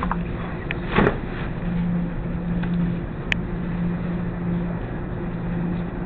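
Commercial laundromat washers and dryers running: a steady low rumble and hum, with a knock about a second in and a sharp click a little after three seconds.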